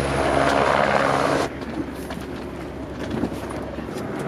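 A rolling rumble for about a second and a half, then quieter, with a few sharp knocks as a hard-shell suitcase is handled and lifted into a car boot, over a faint steady low hum.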